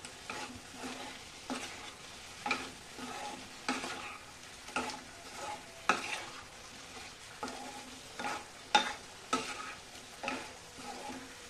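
Chicken and potato pieces frying in a spice paste in a non-stick pan, stirred with a spatula: a low sizzle under repeated scrapes of the spatula across the pan, one every half second to a second.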